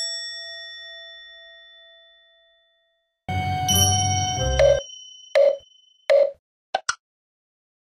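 Edited-in sound effects: a bell-like ding that rings out and fades over about two and a half seconds, then a short comic sound-effect sting, followed by three short popping blips in a row and two faint clicks.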